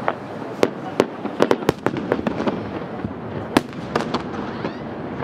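Large aerial firework shells bursting: an irregular string of sharp bangs, some close together, over a continuous crackle.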